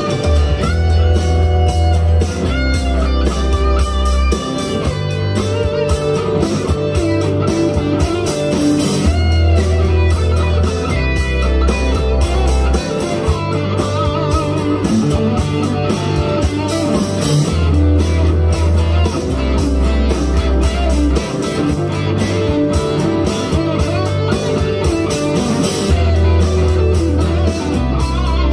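Electric guitar, a Firefly FFLPS Les Paul copy, played through an amp over a backing track whose low bass figure repeats about every eight and a half seconds, with a steady drum beat.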